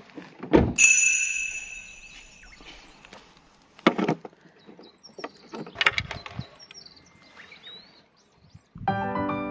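A thump, then a metal object rings with a clear tone that fades over about a second and a half, followed by a few scattered knocks and clatters. Piano music starts near the end.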